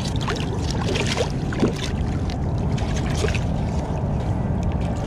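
Shallow water sloshing and splashing against shoreline rocks as a hooked fish is let go into it by hand. There are short irregular splashes, most of them in the first couple of seconds, over a steady wash of water.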